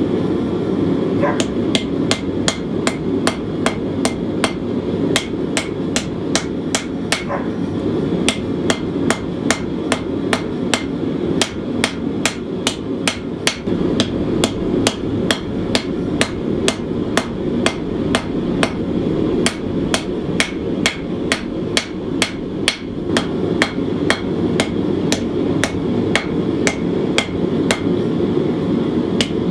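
Hand hammer striking hot steel on an anvil, about two to three blows a second at a steady pace, drawing out a knife's tang. A steady rushing noise runs underneath.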